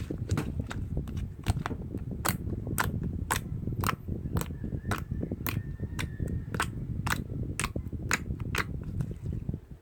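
Sharp clicks repeating at a steady pace of about two a second, over a low rumbling noise; the clicks stop near the end.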